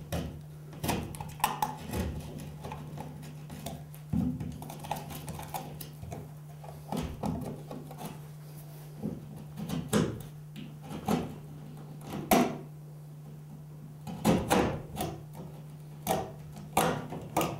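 Knife cutting and scraping drywall around the edge of an electrical box: irregular sharp scrapes and knocks, the loudest a little past the middle, over a steady low hum.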